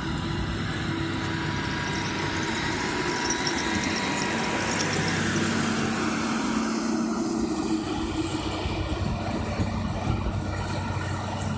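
Champion 730A motor grader's diesel engine running steadily as the machine works through snow on chained tyres. It gets louder as the grader passes close about halfway through, then fades slightly as it moves away.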